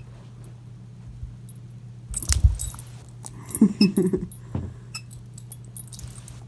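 Metal ID tags on a dog's collar jingling and clicking in bursts as the dog mouths a tennis ball, with a few soft thumps, over a steady low hum. A short low vocal sound comes about halfway through.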